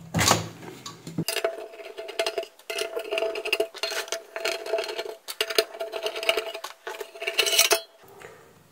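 Screws being driven out of an ATX power supply's sheet-metal cover with a screwdriver: a knock at the start, then a steady whine in several short runs with metallic clinks and scrapes.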